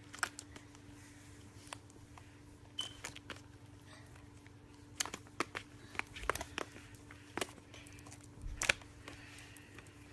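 Slime being handled, squeezed and poked, giving irregular small clicks and pops, with bunches of them about halfway through and near the end.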